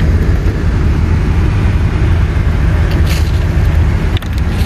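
Steady low rumble of a vehicle engine idling, heard from inside the cab, with a brief rustle about three seconds in.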